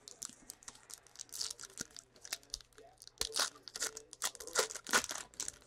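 A 2016 Panini Clear Vision football card pack's foil wrapper being torn open and crinkled by hand. It makes a quick run of sharp crackles that grows denser and louder in the second half.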